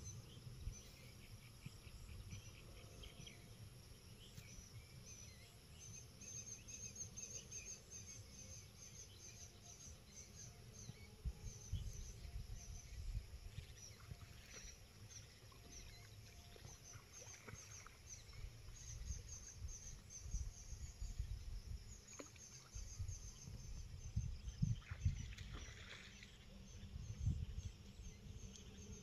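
Faint outdoor ambience: a high-pitched chirp repeating several times a second, with scattered lower chirps, over an uneven low rumble and a few soft thumps.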